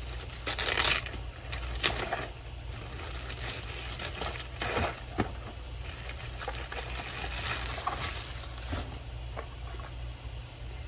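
Plastic medication packaging and a clear plastic bag crinkling and rustling in irregular bursts as they are handled and opened, with a few sharp clicks and taps of the boxes inside.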